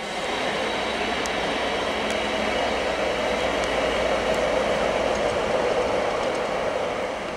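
ÖBB class 2016 diesel-electric locomotive moving past with its diesel engine running and wheels rolling on the rails. The sound swells in the middle and eases off near the end.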